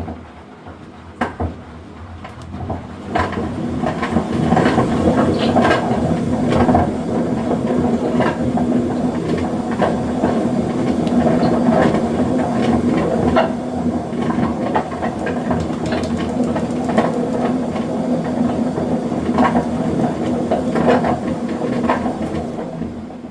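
Gorenje washing machine running: a steady motor hum with irregular clicks and knocks over it. It builds up over the first few seconds and dies away near the end.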